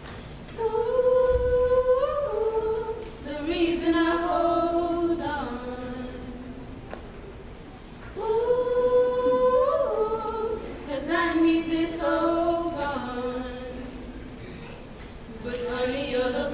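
A small group of women singing a cappella into one microphone, with long held notes. The same sung phrase comes twice, once starting just after the beginning and again about halfway through, and a new phrase starts near the end.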